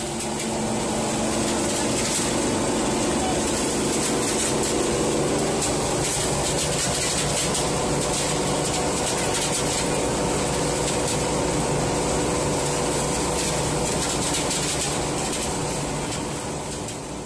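Feed-mill machinery running: a steady mechanical hum with several held tones over a hiss. It fades in at the start and fades out near the end.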